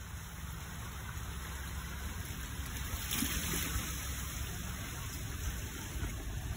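Steady wind rumbling on the microphone over an even hiss of sea water.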